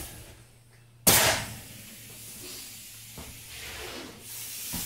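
Paslode compact 30-degree pneumatic framing nailer firing once into a pine 2x4 about a second in: one sharp, loud shot that dies away quickly. The nailer is set to bump fire, which the user blames for it double-nailing.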